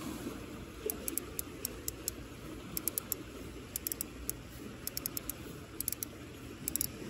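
Light, sharp clicks from a Shimano Soare XR spinning reel being handled, coming in irregular clusters of a few at a time, over a steady low background noise.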